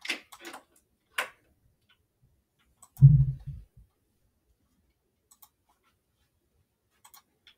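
A few sharp computer mouse clicks in the first second or so, then a brief low thud about three seconds in, the loudest sound.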